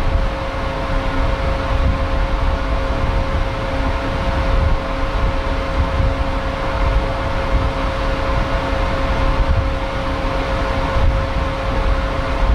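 Steady drone heard on the deck of a passenger ferry under way at sea: a low rumble with a constant mid-pitched hum from the ship's engines and ventilation machinery.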